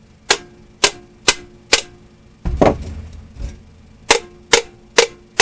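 Sharp metal taps on the Ford Model A Klaxon horn's housing, about two a second in two sets of four, each ringing briefly, as the stuck halves are knocked loose. A rougher clatter comes between the two sets.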